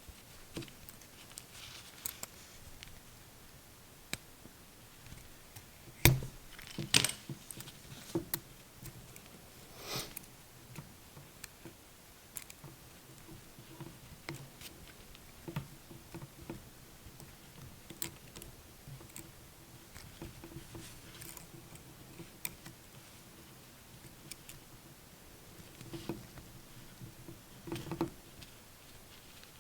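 Hand work on a CAT6 Ethernet cable during termination: scattered small clicks, snips and rustles of the wires and tools, with a sharper knock about six seconds in.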